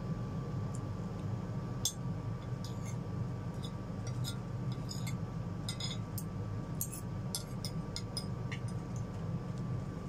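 Metal fork and spoon clinking and scraping against a ceramic plate while gathering up noodles: many light, irregular ticks. A steady low hum runs underneath.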